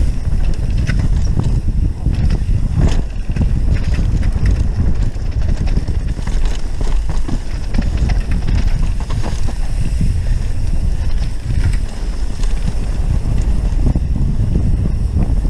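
Mountain bike descending a rough dirt trail at speed: wind buffeting the microphone and a steady rumble of tyres on the ground, with scattered sharp clicks and knocks from the bike over bumps.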